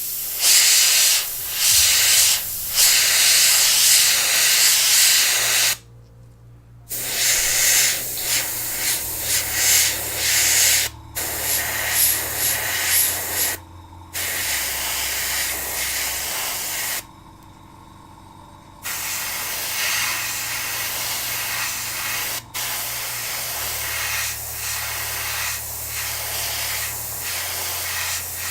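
Airbrush spraying paint in a steady hiss of compressed air, cut off several times as the trigger is released between passes and then started again.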